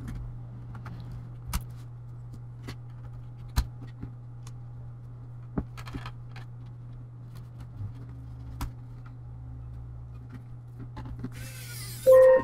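Scattered small clicks and knocks of parts and screws being handled and fitted into a laptop's plastic base, over a steady low hum. Near the end comes a brief loud pitched tone, the loudest sound here.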